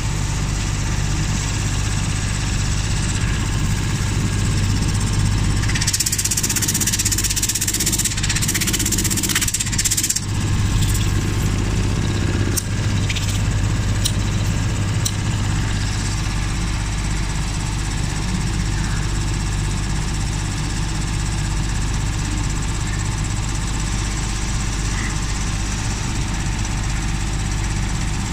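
Belt-driven piston air compressor and its electric motor running with a steady low hum. About six seconds in, a loud hiss comes in for roughly four seconds, followed by a few sharp clicks.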